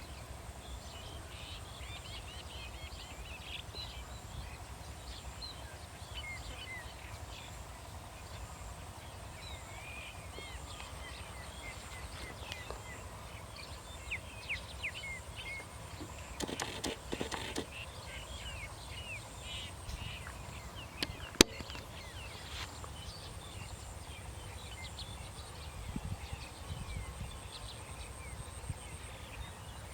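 Many short bird chirps and calls, scattered and overlapping, over a steady low rumble. A single sharp click comes about two-thirds of the way through.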